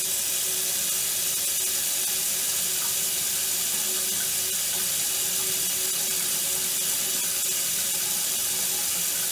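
Kitchen faucet running hot water in a steady stream into a stainless steel sink, splashing around the drain. The hot tap is left open to purge air from the lines after a filter change on a tankless water heater.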